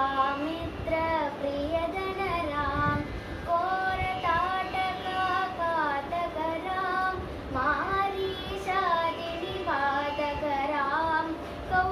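A young girl's solo voice singing a Carnatic vocal piece, her notes sliding and bending in ornamented phrases.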